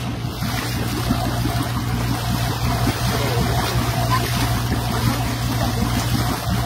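Boat engine running with a steady low hum, under a hiss of water.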